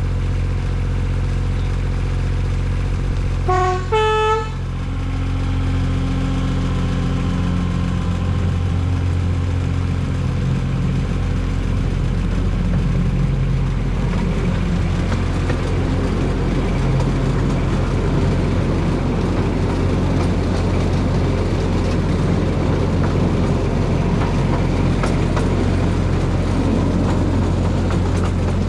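Narrow-gauge diesel locomotive engine running steadily, giving a short two-note horn blast about four seconds in. Its rumble grows rougher and noisier through the second half.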